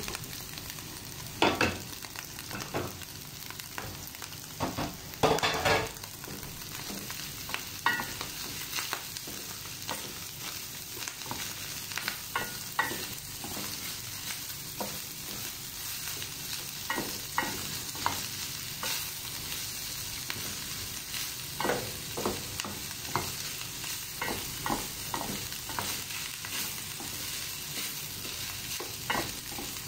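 Ground meat and sliced hotdogs sizzling in an oiled frying pan as a wooden spatula stirs them, with steady frying hiss and irregular taps and scrapes of the spatula against the pan.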